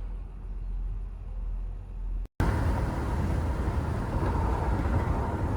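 A car on the road: steady low engine and road rumble. About two seconds in it cuts abruptly to a louder, noisier stretch of road and wind noise.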